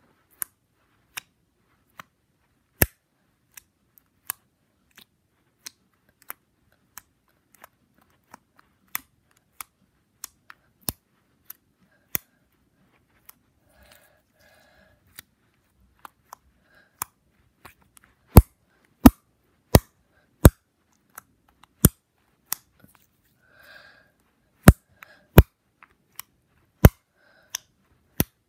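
Slime being squeezed and worked by hand, giving sharp, irregular pops and clicks as air pockets burst. The pops are sparse and soft at first and come louder and closer together in the last third.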